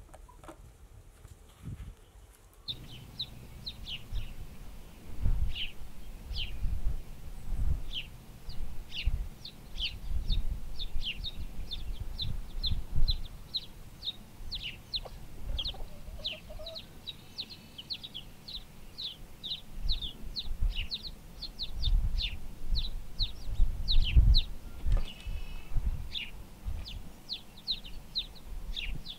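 Icelandic chicken chicks peeping constantly in quick, short, falling notes, starting about three seconds in, over a low uneven rumble.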